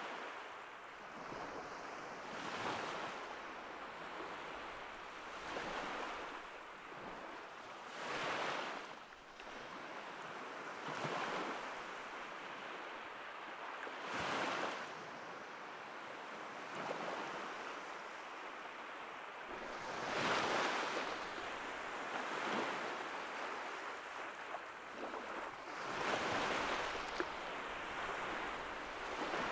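Sea surf breaking on a rocky shore, a steady wash of noise that swells in surges every few seconds.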